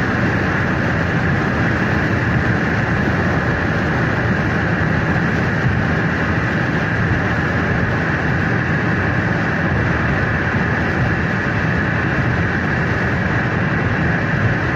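Steady road and engine noise inside a car's cabin while it cruises at highway speed.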